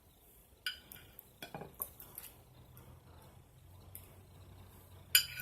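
A spoon clinking and scraping against a dish in a few scattered short knocks, the sharpest near the end, as deviled-egg filling is spooned into the egg white halves.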